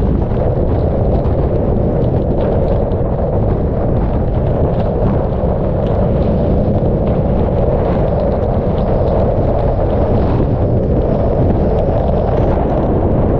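Hurricane eyewall wind buffeting the camera's microphones in a loud, steady, deep rumble, with rain spattering against the camera.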